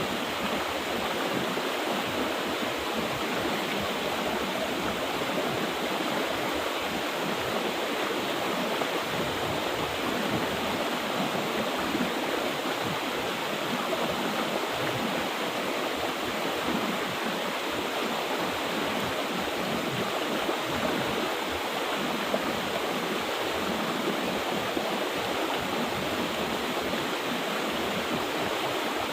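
Mountain river flowing steadily: an even, unbroken rush of running water.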